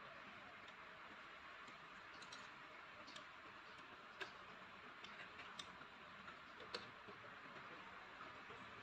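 Faint, scattered clicks and ticks of hands handling a wall switch or fan regulator and its wiring at an open wall box, over a steady low hiss. The clicks come irregularly, about six in all, the sharpest around the middle.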